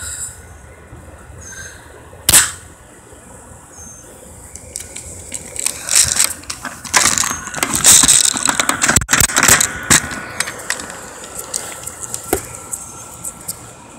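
A single sharp crack about two seconds in, then several seconds of clattering and scraping from about six to ten seconds in.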